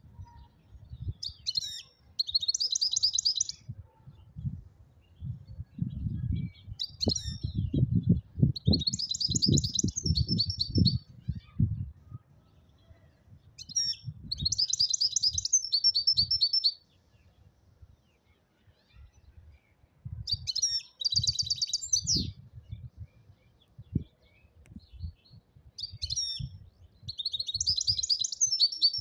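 Goldfinch singing in five separate bursts of fast, twittering trills with short pauses between them. Irregular low thumps and rumble run underneath, heaviest in the middle.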